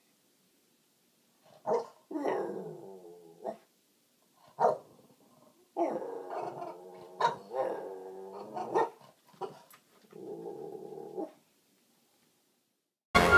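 French bulldog 'talking': short sharp yips and barks alternating with longer, wavering growl-like grumbles and moans, in several separate turns. Loud music cuts in right at the end.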